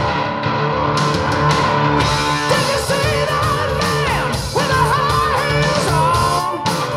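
Rock song played from a vinyl record on a turntable: guitar-led music, with a singing voice coming in about two and a half seconds in.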